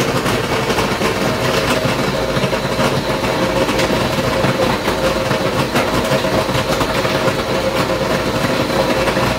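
Countertop blender running loud and steady, its motor whining while chunks of ice clatter and rattle against the jug as they are crushed into a liquid mix.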